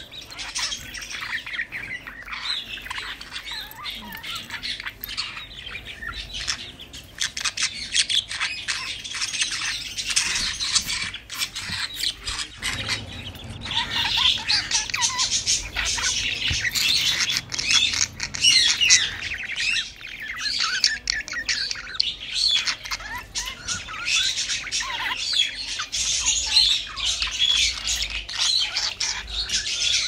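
Budgerigars chattering, a continuous stream of quick chirps and warbles, with many small clicks mixed in.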